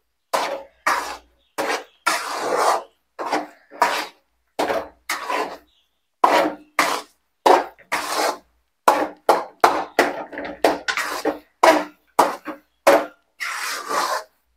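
A spoon scraping and stirring in a cooking pan, in short irregular strokes about one or two a second, as rava semolina is stirred into boiling water for upma.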